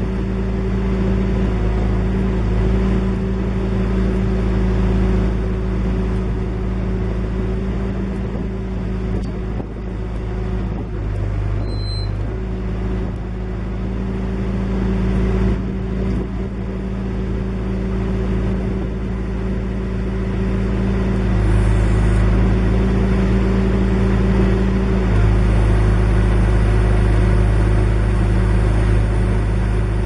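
John Deere 410G backhoe's diesel engine running steadily while the backhoe boom and bucket are worked, its note shifting a few times as they move.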